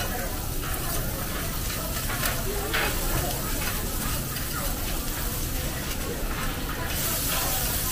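Egg and rice sizzling on a teppanyaki steel griddle while metal spatulas scrape and tap against the plate. Near the end the hissing grows louder.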